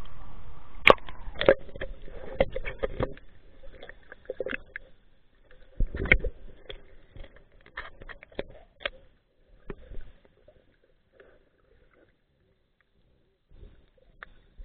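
Muffled underwater sound: water sloshing with irregular sharp clicks and knocks, densest in the first three seconds, growing sparse and dying to near silence from about eleven to thirteen seconds in, with a few clicks near the end.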